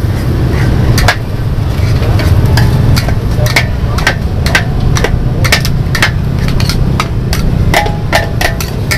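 Metal spatulas clanking and scraping against a large iron wok as noodles are stir-fried, about two sharp strikes a second at an uneven pace, over a steady low rumble.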